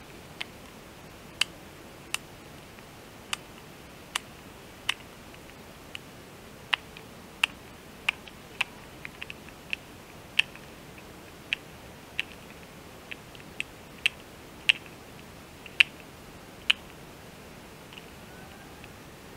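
Sharp single clicks at irregular intervals, roughly one a second, from something being handled, over a quiet steady background.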